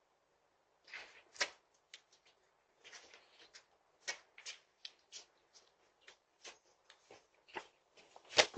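Irregular light clicks, taps and rustles starting about a second in, with a sharper knock near the end, picked up by a doorbell camera's microphone.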